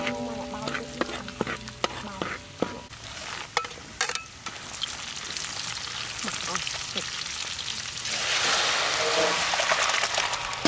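Dried chilies and chili paste sizzling in hot oil in a wok, with a metal spatula scraping and clicking against the wok as it stirs. About eight seconds in the sizzle swells into a louder, steady hiss as liquid goes into the hot wok.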